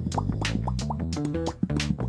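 Background music with plucked guitar, bass and a quick, steady beat.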